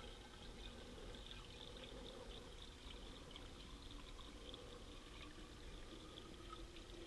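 Fuel being poured into the fuel tank of a vintage McCulloch Super 550 chainsaw: a faint, steady trickle.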